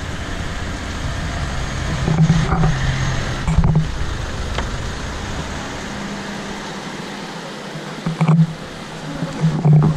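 A car's engine rumbling as it passes, fading about seven seconds in. Several short gusts of wind buffet the microphone.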